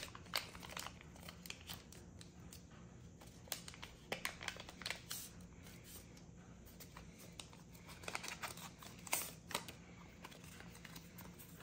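Wrapper of a small Pokémon trading card pack being torn open and crinkled, then the cards pulled out and handled: faint, scattered crinkles and ticks, with small clusters about a third of the way in and near the end.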